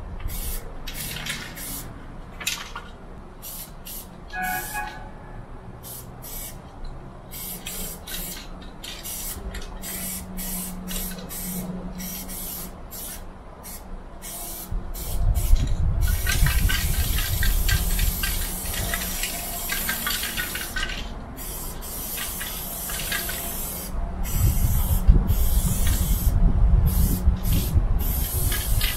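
Aerosol spray-paint can hissing in many short bursts, with longer, denser spraying past the halfway point, as graffiti is painted on a freight wagon. A loud low rumble comes in about halfway and again near the end.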